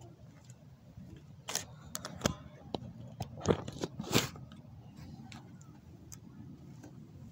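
A cluster of sharp clicks, knocks and short rubs from a handheld phone being gripped and swung around, the loudest two in the middle, then a few fainter ticks over a faint low outdoor background.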